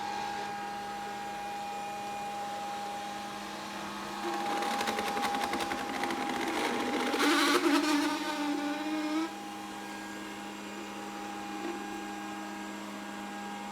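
Grundig VCR 2131 robot vacuum cleaner running with a steady motor hum. About four seconds in, a louder, rapidly rattling whir joins it and cuts off suddenly about nine seconds in.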